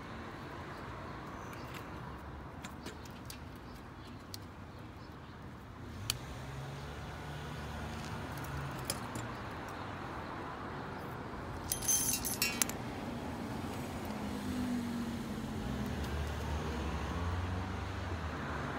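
Light metallic clinks and rattles as hand tools and small metal parts in a plastic bag are handled, with a short burst of jingling about twelve seconds in. A low rumble builds under it near the end.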